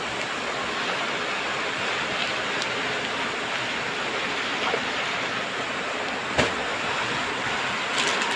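Steady hiss of rain falling, with a few louder single drops ticking, one clearly about six and a half seconds in and a couple near the end.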